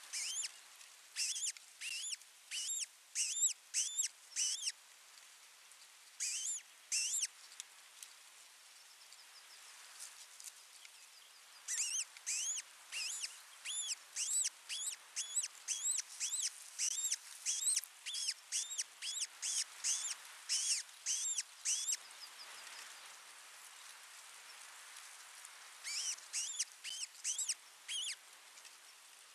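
Osprey calling: series of short, sharp, whistled chirps, about two or three a second, in bursts. One burst runs through the first few seconds, a short one comes around six seconds in, the longest runs from about twelve to twenty-two seconds, and another comes near the end.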